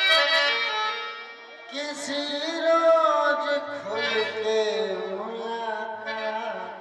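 Harmonium holding sustained chords, joined about two seconds in by a man's voice singing a long, wavering note with no clear words.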